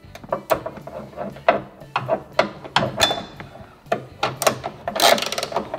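Ratchet on a long extension and 15 mm socket tightening the tow hook's mounting nuts: short bursts of clicking about twice a second as the handle is swung back and forth, with a quicker run of clicks about five seconds in.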